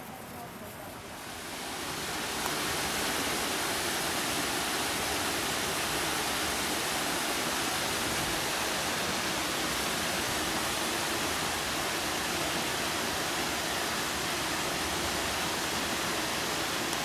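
Steady rushing of water, swelling in over the first two seconds or so and then holding level.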